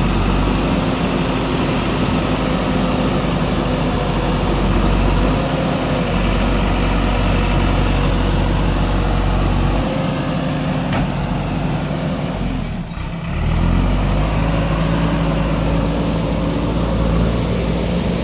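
Diesel engines of a JCB backhoe loader and tractors running while working, the engine note shifting in pitch now and then, with a brief drop in level about 13 seconds in.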